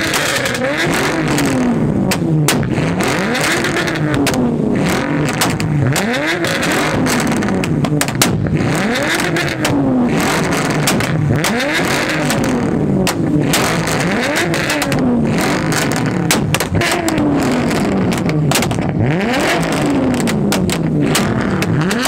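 A modified car engine with a big straight-through exhaust being revved hard over and over, about every two seconds. Each rev climbs sharply and falls back, with loud crackling pops and bangs from the exhaust.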